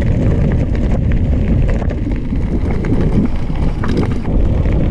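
Maxxis Griffer bicycle tyres rolling over a loose gravel road: a steady rolling noise with scattered small clicks of stones, under wind buffeting the microphone.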